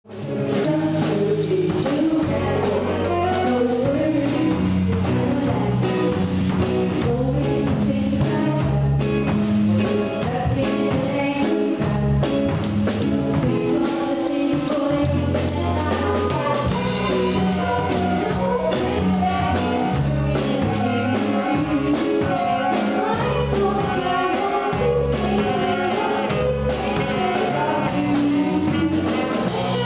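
A live band plays a steady, driving rock number on drum kit, electric guitar and bass guitar, with a violin joining in.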